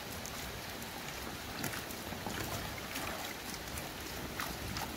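Steady outdoor background noise with faint, scattered small clicks and ticks.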